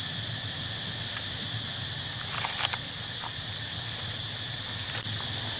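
Steady high-pitched drone of insects, with a brief cluster of sharp clicks about two and a half seconds in.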